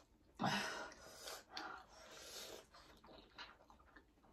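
Quiet, short breathy gasps and sniffs, several in a row, from people eating spicy Korean fire noodles.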